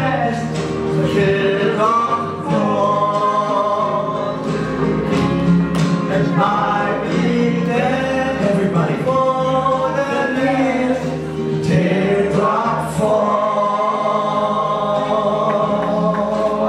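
Karaoke singing: a solo voice amplified through a handheld microphone over a recorded backing track, holding one long note over the last few seconds.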